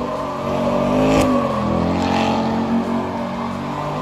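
Truck engine revving as the truck spins donuts, its pitch rising and falling.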